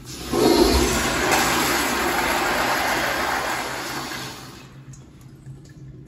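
American Standard Afwall wall-hung toilet flushing on its exposed flushometer valve: a loud rush of water starts abruptly, runs for about four seconds, then tapers off.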